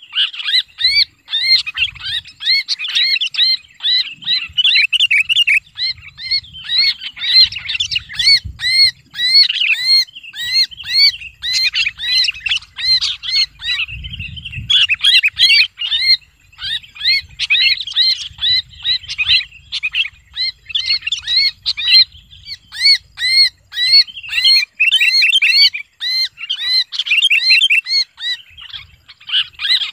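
Sooty-headed bulbul held in the hand, screaming harsh distress calls in a rapid, unbroken series of short notes. These are the 'kejepit' screams of a gripped bird, used as a lure call to draw in other bulbuls.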